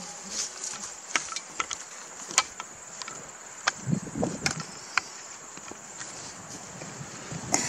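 Red deer stag heaving itself up out of a mud wallow, with wet sloshing about four seconds in, amid scattered sharp clicks and ticks.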